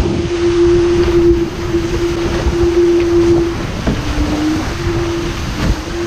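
Diam 24 trimaran sailing fast in strong wind: wind and rushing water with a steady humming tone that drops slightly in pitch about four seconds in.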